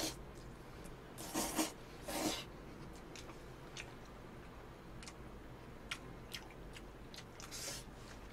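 Someone eating spaghetti out of a takeout box with a fork: chewing sounds, two louder noisy bursts about one and two seconds in, then scattered light clicks of the fork in the box.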